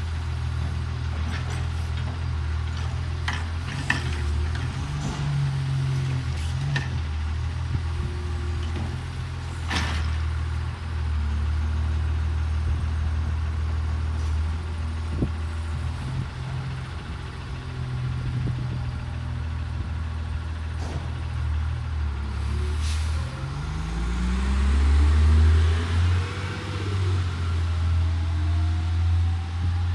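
Diesel engine of an automated side-loader garbage truck running at idle, with a few sharp knocks from the lifting arm and cart. Near the end the engine revs up with a rising pitch and grows louder as the truck pulls away.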